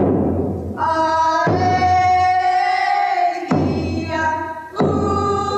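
Singing voices in a chant-like song with long held notes that start abruptly.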